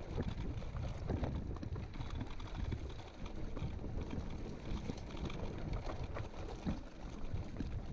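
Mountain bike riding over a rough grassy and stony singletrack: tyres rolling on the dirt, frequent short knocks and rattles from the bike over bumps, and wind buffeting the microphone.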